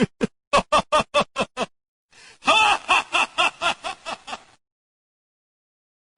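Two laughing sound effects one after the other: first a quick run of short 'ha' bursts, each dropping in pitch, then after a brief gap a breathier laugh of rapid pulses that stops about four and a half seconds in.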